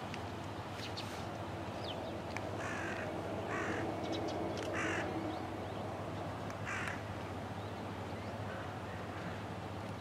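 A crow cawing four times, short harsh calls spread over a few seconds, over steady background noise.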